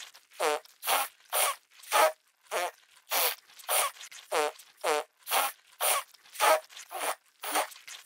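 Cartoon vocal sound effect for a clay creature: short raspy calls repeated about twice a second, each sliding down in pitch.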